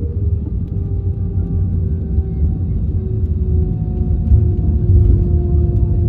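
Airbus A321 cabin noise on the ground after landing: a steady low rumble with engine tones that slide slowly lower.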